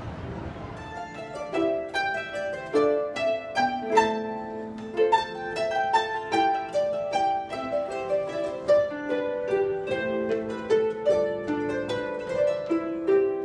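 Several Salvi harps played together: a tune of plucked notes, each ringing and fading, beginning about a second in.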